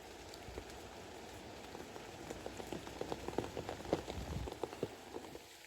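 Heavy rain with big drops striking close by, the strikes coming thickest from about two and a half to five seconds in.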